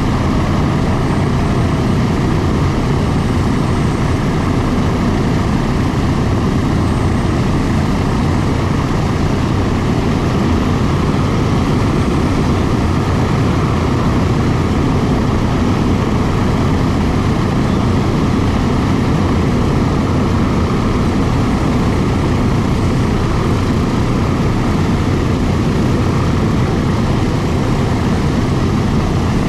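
The four Wright R-3350 radial engines of a Boeing B-29 Superfortress running steadily on the ground, a loud, even propeller rumble.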